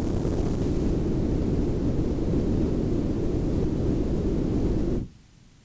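Synth noise filtered through a TDA1524 voltage-controlled tone filter: a steady hiss weighted heavily toward the bass, with a faint treble band on top. It cuts off abruptly about five seconds in.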